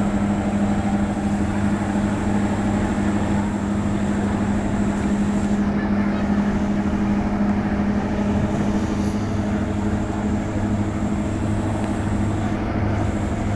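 Ship engines droning steadily with a constant low hum, mixed with water rushing in the wake of large river passenger launches running side by side.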